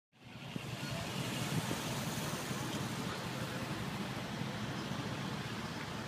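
Steady city street traffic noise, a low rumble of car engines.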